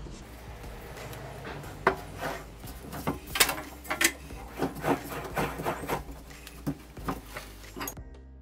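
A wooden disc blank being handled and screwed onto the faceplate and spindle of a small wood lathe: irregular knocks, clicks and scraping of wood against metal.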